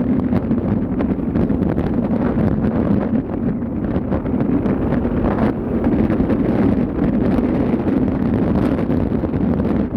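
Steady wind buffeting the microphone over the low, continuous drone of a ship under way.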